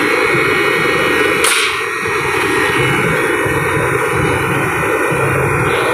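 Newly replaced walk-in freezer refrigeration compressor running steadily, drawing about 6.7 A, under its 13.2 A rated maximum. A single sharp click comes about a second and a half in.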